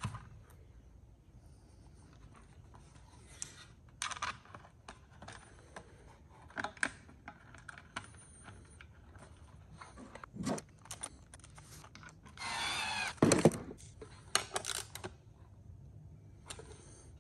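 Hands handling small metal parts, wiring connectors and tools on a workbench: scattered light clicks, taps and rattles. A louder sound lasting about a second comes about two-thirds of the way through.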